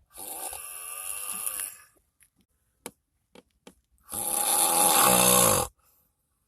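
A person snoring in their sleep: two long snores about four seconds apart, the second much louder, with a few faint short clicks between them.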